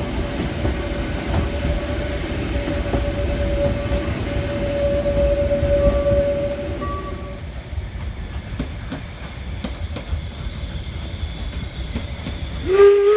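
Narrow-gauge steam train rolling and clattering over the track, with a steady squeal from the wheels on the curve for the first half. After about seven seconds it drops to a quieter rumble with light clicks, and right at the end the steam locomotive's whistle sounds.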